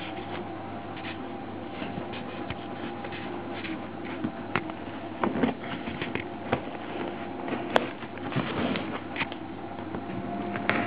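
Small knife blade scraping and slicing along the packing tape on a cardboard box, in irregular scratches and clicks that come more often after about four seconds. A steady low hum runs underneath.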